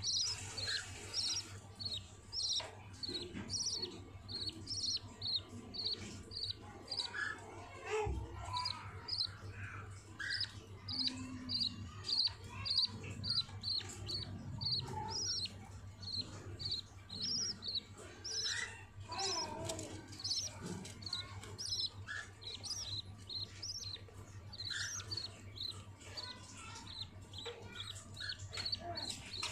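Budgerigars chirping, a steady run of short high chirps about two to three a second with other softer calls mixed in, over a faint low hum; a single knock about eight seconds in.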